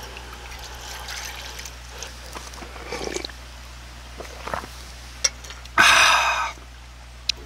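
Makgeolli (rice wine) poured from a plastic bottle into a small metal bowl, then drunk. About six seconds in comes a short, loud breathy exhale after the drink.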